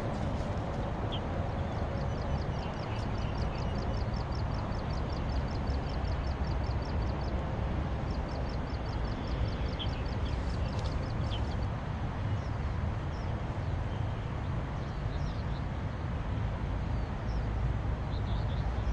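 Steady riverside outdoor background: a low rumble with an even hiss. About two seconds in, a fast high ticking starts, around ten ticks a second, in two runs of a few seconds each, with a few short high chirps.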